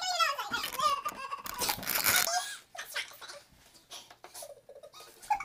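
Girls laughing: a burst of high, wavering giggling at the start, then breathy laughter, quieter and more broken over the last few seconds.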